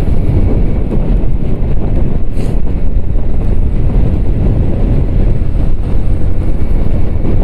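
Heavy wind buffeting the microphone of a Yamaha motorcycle at riding speed, a steady loud rumble with the bike's running and road noise underneath.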